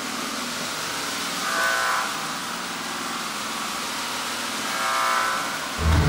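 Buzzy electronic square-wave synthesizer drones, steady, with a higher tone swelling up twice. Just before the end a much louder low buzz cuts in.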